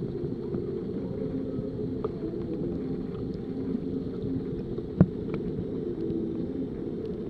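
Muffled underwater rumble of a koi pond, heard through a submerged camera, with one sharp click about five seconds in.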